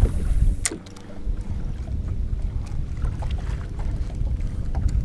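Wind buffeting the microphone on an open boat: a fluctuating low rumble throughout. A single sharp knock comes a little under a second in, with a few small clicks after it.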